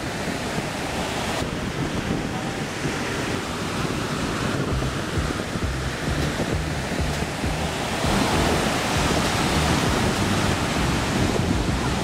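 Ocean surf breaking in a steady rush, with wind buffeting the microphone; the noise steps up a little about eight seconds in.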